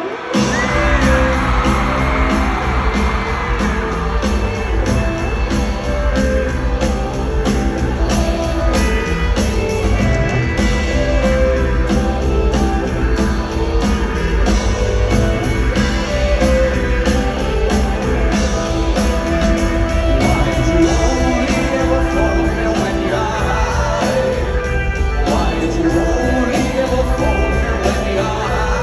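Rock band playing live in an arena, loud and steady: drums keeping a regular beat under bass and electric guitar, without the lead vocal. The crowd shouts and whoops over the music in the first few seconds.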